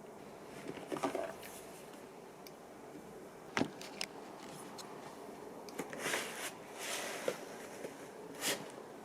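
Scattered light knocks and clicks with a few short rustles, as of household objects being handled, over a faint steady hum.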